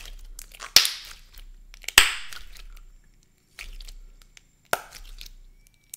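Thick, stiff white slime being squeezed and stretched by hand, giving three sharp pops with crackling between, the loudest about two seconds in. The slime is very stiff and heavily activated, which makes it poppy.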